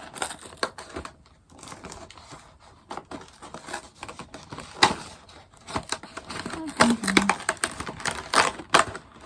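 Plastic and cardboard packaging of a Disney Doorables mini-figure pack being handled and opened by hand: irregular clicks, crinkling and tearing, with a few sharper snaps about 5 and 8 seconds in.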